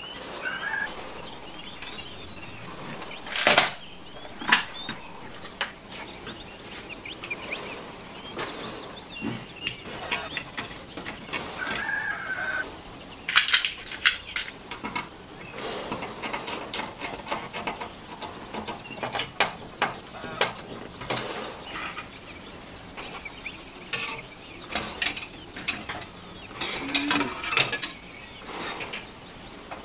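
Hands handling small hardware: scattered clicks and taps, with metal screws clinking in a plastic compartment organizer box. The sharpest clicks come about three and a half seconds in and again around thirteen to fourteen seconds in.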